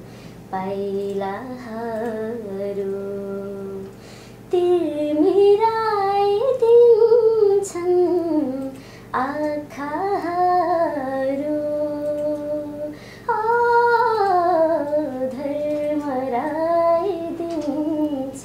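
A young woman singing a Nepali song solo and unaccompanied. Her phrases mix long held notes with sliding ornaments and are broken by short breaths about four, nine and thirteen seconds in.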